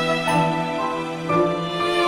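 Slow, gentle background music with held notes.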